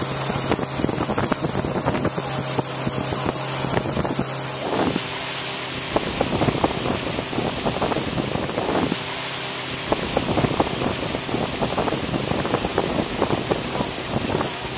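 Outboard-powered river boat running under way: a steady low engine hum whose tone changes about four and a half seconds in, with wind buffeting the microphone and water rushing past the hull.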